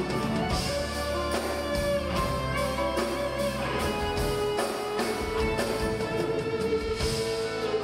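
Live band playing an instrumental passage with an electric guitar leading, over a steady rhythm section.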